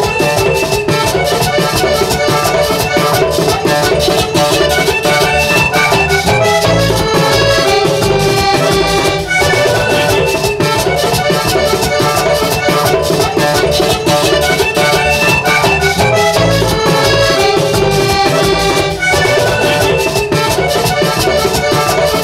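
Lively Latin American music led by a button accordion, with a hand drum keeping a steady beat.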